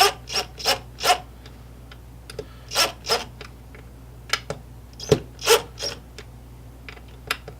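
Small hinge screws being turned by hand into cherry wood with a screwdriver: a series of short rasping squeaks, some in quick groups of two or three, with pauses between.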